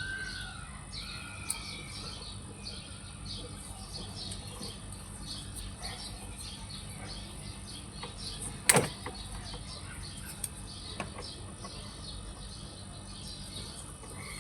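Birds chirping in the background with a steady high insect-like drone, and a single sharp knock about nine seconds in.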